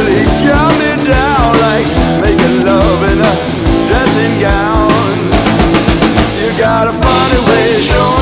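Rock band recording, with drums keeping a steady beat under bending melodic lead lines.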